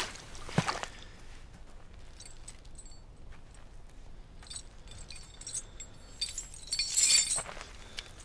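A footstep splashes into a shallow puddle, with a second splash just after. Then a metal chain clinks lightly on and off and jangles louder about seven seconds in.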